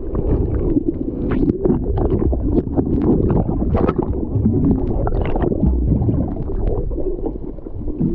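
Muffled underwater sound picked up by a camera held below the surface: a steady low rumble and gurgle of moving water, with many small clicks and knocks throughout.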